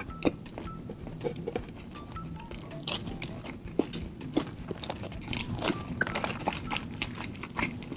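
Close-miked chewing and biting of a McDonald's spicy beef burger: many short wet mouth clicks and crunches.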